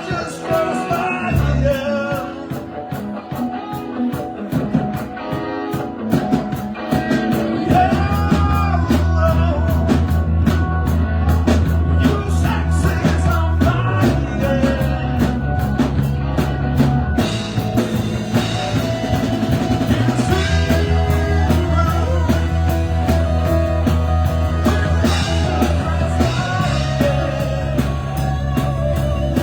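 Live band playing rock music: a drum kit keeping a steady beat with guitar and held bass notes, the sound filling out about seven seconds in.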